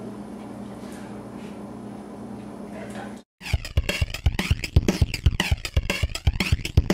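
A Labrador's wet lip-smacking and tongue clicks while eating sticky peanut butter, faint at first. About three seconds in, after a sudden cut to silence, music with a drum beat comes in under fast, rhythmic smacking clicks.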